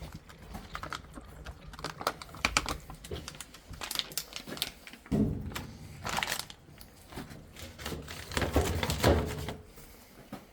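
Irregular small clicks, crinkling and a few soft knocks from handling a torn-open cat food pouch and the cats' dishes while cats are fed.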